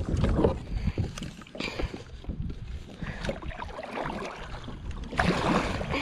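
A kayak being paddled: the paddle blades dip and splash in the water in uneven strokes, with a louder stretch of splashing near the end.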